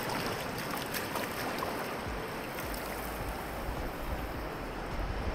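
Small waves washing in over wet beach sand at the water's edge, a steady wash, with a low rumble of wind on the microphone from about two seconds in.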